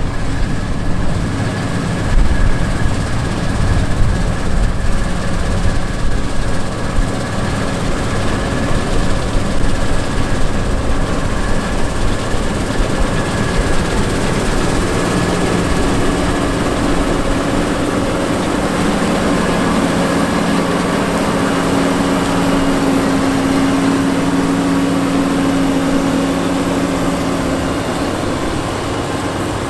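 John Deere 9510 Maximizer combine harvesting wheat: its turbocharged 8.1-litre six-cylinder diesel engine and threshing machinery running in a steady drone with humming tones. About halfway through, the low hum becomes steadier and stronger.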